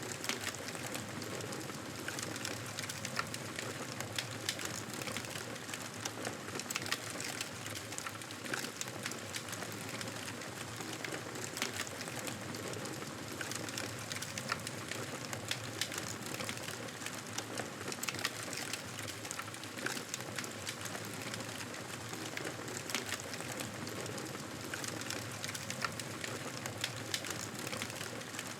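Wood fire crackling in a fireplace: a steady hiss with frequent short, sharp pops and snaps.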